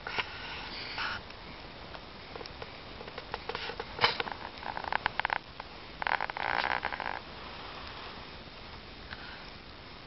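Wood bonfire crackling and popping in irregular clusters, with one sharp, loud pop about four seconds in. Two spells of hissing come at the start and around six seconds in.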